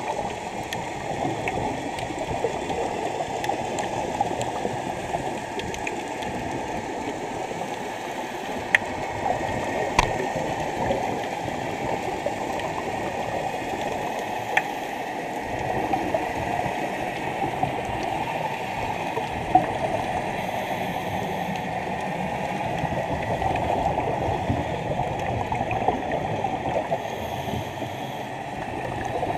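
Muffled, steady underwater rushing with scuba divers' regulator breathing and exhaled bubbles, heard through a waterproof camera housing, with a few sharp clicks scattered through.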